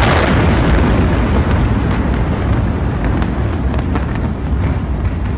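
Rumble of a huge chemical explosion: a loud, continuous low rumble with scattered cracks and pops, slowly easing off.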